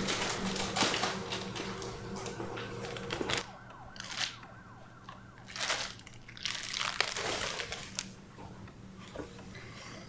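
A clear plastic bag crinkling in short irregular bursts as it is handled, over a low steady hum that drops in level about a third of the way in.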